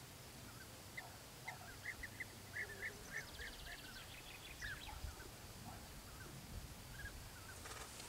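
European bee-eaters calling: a run of short, clipped calls, repeated several times a second at first and thinning out. A brief fast ticking trill sounds higher up about three seconds in.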